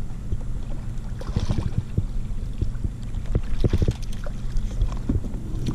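Water splashing and short knocks and clatters against a kayak, with a low rumble of wind underneath, as a hooked redfish is brought alongside and landed.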